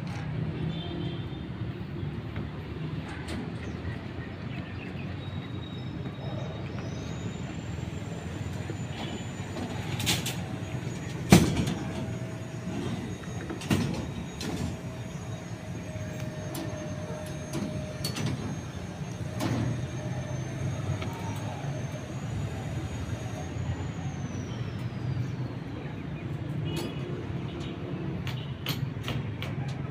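Steady low mechanical rumble with scattered knocks and clanks, the loudest about eleven seconds in. A thin, high steady tone holds through the middle stretch.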